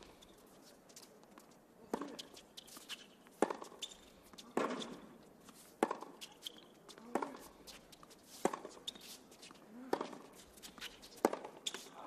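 Tennis rally on a hard court: sharp racquet strikes on the ball about every second and a half, each exchange with quieter ball bounces between.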